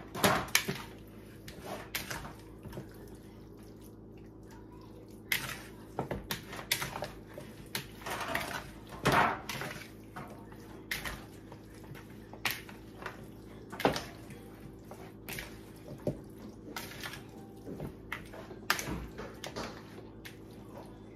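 Hands tossing and rubbing raw seasoned chicken pieces in a bowl: irregular wet squishing and slapping with short knocks, over a steady low hum.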